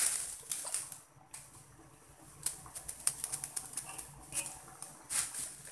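Metal spoon clicking and tapping against the wok as the chicken gulai is stirred and seasoned: a quick, irregular run of light clicks starting about halfway through.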